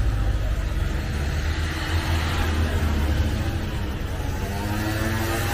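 A motor vehicle's engine running close by: a loud, deep, steady rumble, with its engine tones standing out more clearly near the end.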